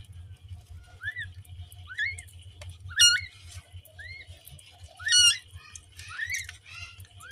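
Newborn kittens mewing: short, high, rising-and-falling squeaks about once a second, two of them much louder in the middle.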